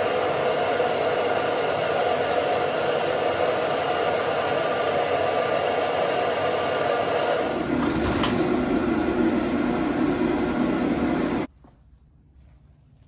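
Steady, loud whirring of a motor-driven blower or fan, its tone dropping lower about seven and a half seconds in, then stopping abruptly near the end.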